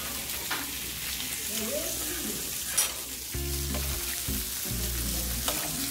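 Pork belly sizzling on a tabletop griddle: a steady frying hiss, with one sharp tap almost three seconds in.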